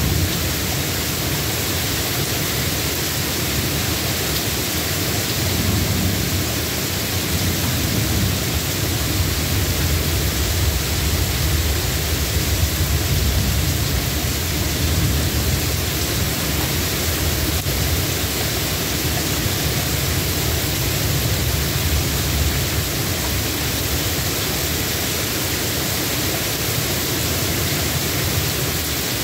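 Steady rain falling, with a low rumble of distant thunder underneath that swells now and then.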